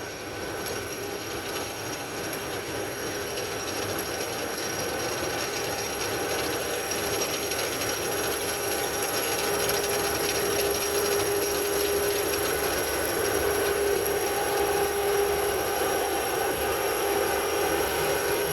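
Combine harvester running steadily at work in a wheat field, a mechanical noise with a few held tones that grows gradually louder.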